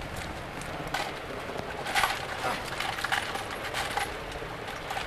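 Loose metal screws clinking and rattling as a hand rummages for a long screw, in irregular sharp clinks.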